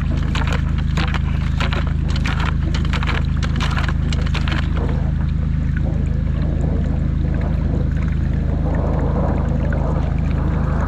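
High-pressure drain jetter's engine running steadily while the jetting hose clears a blocked stormwater pipe, with muddy water splashing out of the kerb outlet. The splashing is loud for the first half and quiets to a softer trickle about halfway through.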